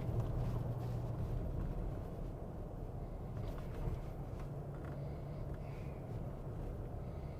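Pickup truck driving on a rough road, heard from inside the cab: a steady low engine and road drone, with a few faint knocks as it goes over potholes.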